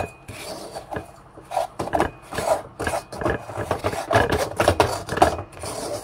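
Wooden spatula scraping and rasping through crumbly, freshly crystallized osmanthus sugar against a stainless steel pan, in quick, irregular strokes. The dry, gritty scrape is the sign that the boiled syrup has turned sandy, seizing into granules like granulated sugar.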